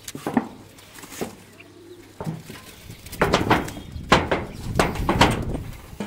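Irregular knocks and thumps on corrugated metal roof sheeting, as a person steps and moves across it. The knocks come sparsely at first and bunch into a rapid cluster from about three seconds in.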